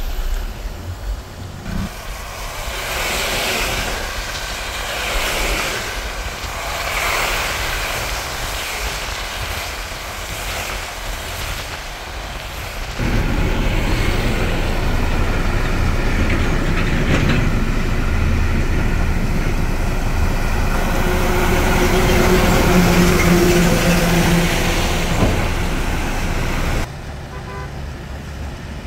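Road noise from a moving vehicle: engine and tyres running on a wet road. It gets suddenly louder and deeper about thirteen seconds in, then drops back near the end.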